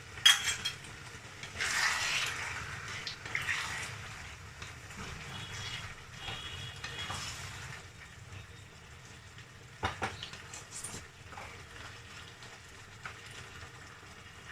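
Taro greens cooking in a pan: a couple of sharp utensil knocks at the start, then a rush of hissing for a couple of seconds that settles into a faint steady sizzle, with another knock about ten seconds in.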